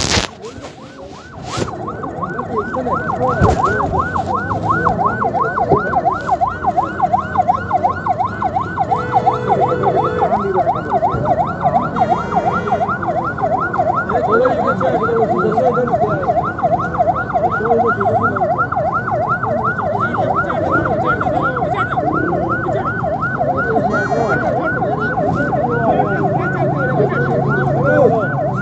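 Rescue 1122 ambulance siren sounding a fast yelp, its pitch rising and falling about three times a second without a break.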